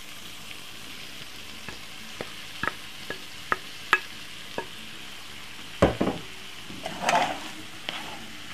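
Vegetables and leftover rice sizzling in a frying pan while being stirred, with frequent short taps and scrapes of the utensil against the pan and a louder knock about six seconds in.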